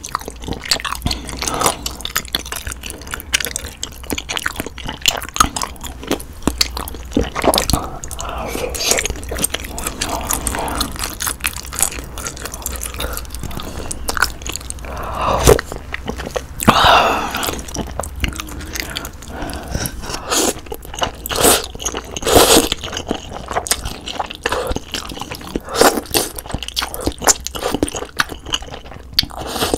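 Close-miked chewing of budaejjigae, with wet, chewy mouth sounds and bites of noodles, sausage and ham. Many short sharp smacks and clicks, with a few longer wet stretches about halfway through.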